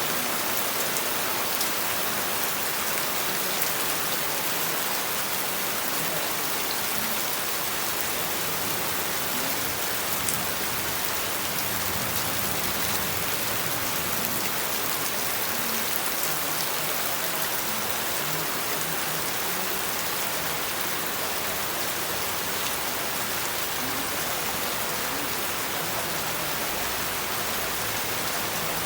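Steady rain falling, an even hiss of many drops on surfaces with a few separate drop ticks.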